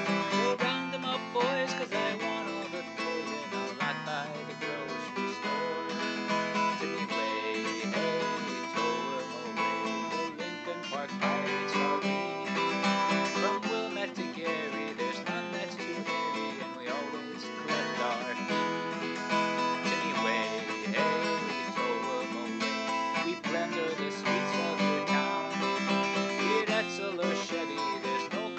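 Acoustic guitar strummed steadily with a man's voice singing along.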